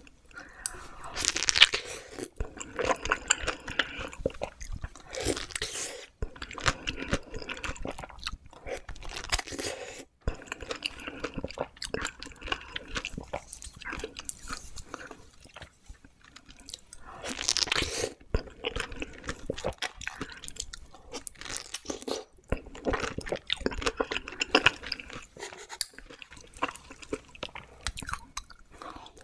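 Close-miked eating sounds: bites into a chilled peach dessert filled with whipped cream and Nutella, with chewing in between. The two loudest bites come about a second and a half in and again about seventeen seconds in.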